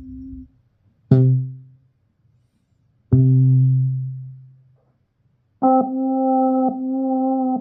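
Single preset notes from the Native Instruments Maschine expansion Drift Theory, auditioned one at a time with silences between: a short decaying note about a second in, a deeper note that rings and fades about three seconds in, then a held note from about halfway, struck again a second later and stopping sharply near the end.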